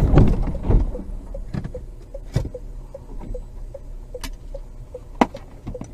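Car collision heard from a dashcam inside the car: the impact noise dies away in the first second. A steady light ticking follows, about two to three ticks a second, broken by a few sharp knocks and one louder click near the end.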